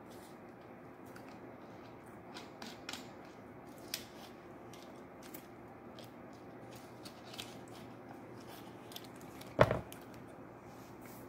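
Small clicks and crackles of a soda bottle being handled while it is tasted, over a low steady room hum, with one louder knock near the end.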